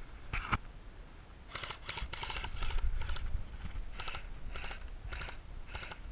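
A series of short, scratchy crunches, bunched together at first and then coming about twice a second.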